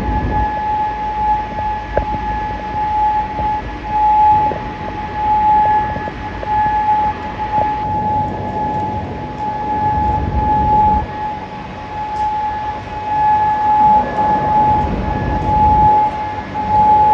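Air raid siren sounding one steady, unwavering tone that swells and fades in loudness every couple of seconds, over a low rumbling background.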